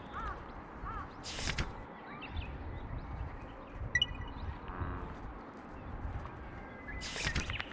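Outdoor pond-bank ambience: wind rumbling on the microphone, a bird calling a few times early on, a brief rustle about a second and a half in, and a short rushing whoosh near the end.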